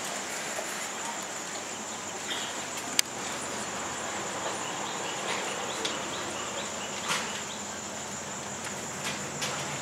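Insects trilling steadily at a high pitch over the faint rustle of an outdoor crowd, with one sharp click about three seconds in.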